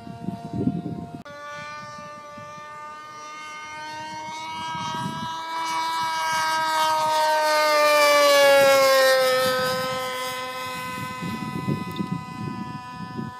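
Hangar 9 Aresti 40 radio-controlled aerobatic plane's engine running steadily as the plane makes a pass. It grows louder to a peak about eight seconds in, then fades as its pitch drops.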